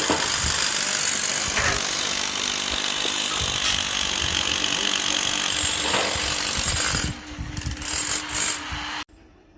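A power tool running loudly and continuously, in a dense rasping noise that turns uneven for the last couple of seconds and then cuts off abruptly near the end.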